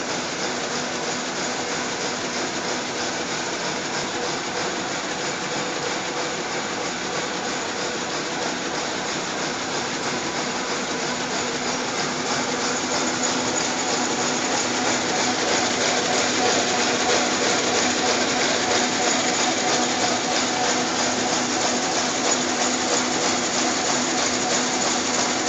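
Single-piece wet wipes packing machine running: a fast, even mechanical clatter over a steady hum, a little louder from about halfway through.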